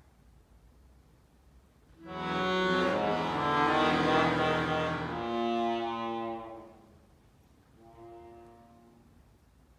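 Solo accordion: after a quiet pause, a loud, dense cluster chord enters suddenly about two seconds in and is held for about four seconds, its notes shifting, before it dies away. A softer chord sounds briefly near the end.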